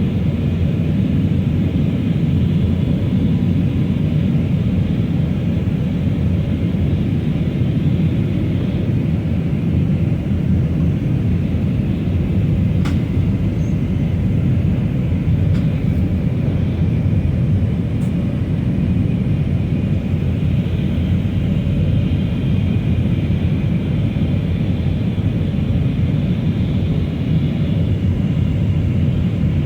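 Steady cabin noise inside an Airbus A319 airliner: a loud, even, low rumble of engines and airflow. A few faint clicks sit on top of it.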